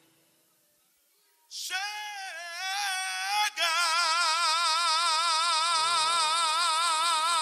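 Male singer holding a long, high sung note with wide vibrato into a microphone. It starts about a second and a half in, breaks off briefly about three and a half seconds in, then is held to the end; soft band accompaniment comes in under it near the end.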